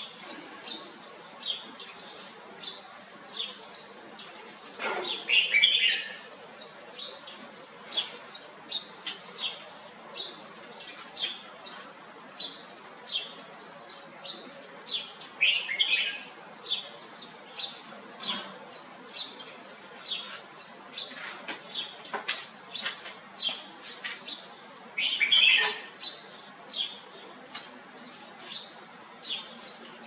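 Red-whiskered bulbul calling: an unbroken run of short, high chirps, about three a second, with a louder, lower phrase three times, about ten seconds apart.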